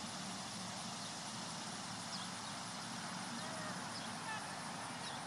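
Steady outdoor background hiss in an open pasture, with a few faint short bird chirps scattered through it.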